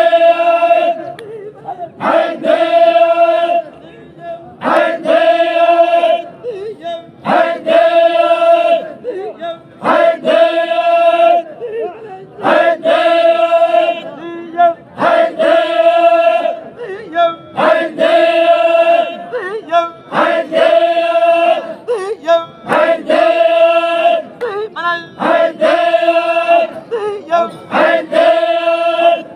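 Chogan, the Zikri Baloch devotional chant, sung by a group of voices in unison. The same short phrase repeats about every two seconds.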